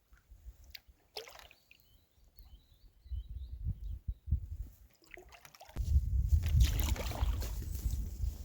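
Paddling a packraft on a creek: paddle strokes and water sloshing against the boat, with scattered knocks, faint high chirps about two seconds in, and a much louder stretch of noise from about six seconds in.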